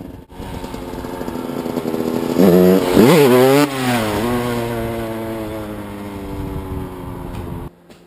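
Yamaha YZ125 two-stroke dirt bike engine revving hard, its pitch climbing to a loudest stretch of quick revs about three seconds in. The pitch and level then fall away steadily as it moves off, and the sound cuts off suddenly near the end.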